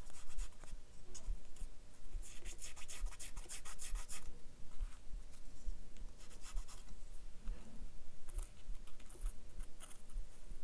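A quilling paper strip being drawn again and again over a quilling tool's metal needle to soften (condition) it, making quick, dry scratchy strokes. The strokes come in bursts, the densest a couple of seconds in.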